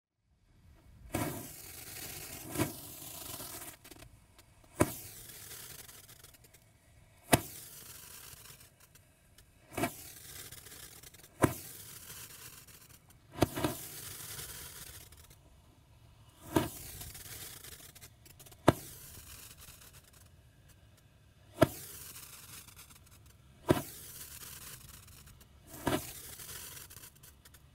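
Alien brand Crazy Comets 8-shot Roman candles firing: about a dozen sharp pops, one to three seconds apart, as each tube launches a golden-glitter-tailed comet. A hissing spray runs between the pops.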